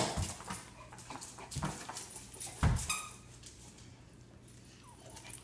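Young Chinese Shar-Pei puppies, eyes barely open, giving three short cries: right at the start, about 1.7 s in, and the loudest about 2.8 s in.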